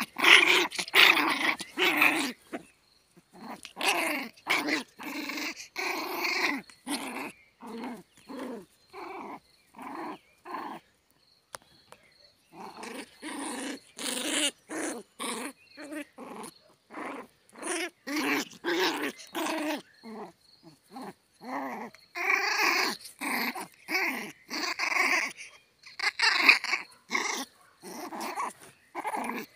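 Small puppy play-growling in short repeated bursts, two or three a second, as it mouths at a hand, with a short pause near the middle.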